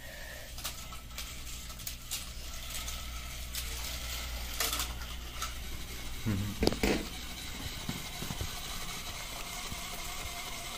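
Plastic toy cars and flexible plastic track pieces being handled and set down, making scattered clicks and knocks, the loudest about six and a half seconds in, over a steady low hum.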